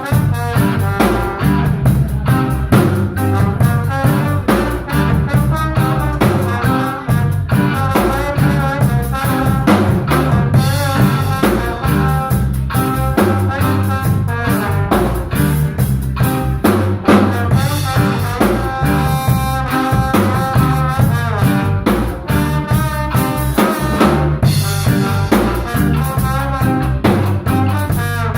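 Live instrumental band playing: a drum kit keeping a steady beat with rimshots under melodic lines, in a jazzy, bluesy style.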